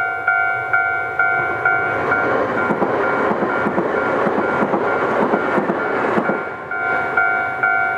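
Railway level-crossing warning bell ringing its steady two-tone ding about twice a second. From about two seconds in, a passing train's rumble and wheel clatter drowns it for roughly four seconds, then the bell is heard again.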